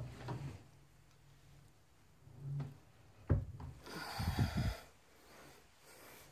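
A wooden knock about three seconds in, then about a second of rubbing, sliding noise with low thuds: a wooden drawer of the storage bed moving on its Blum Tip-On runner.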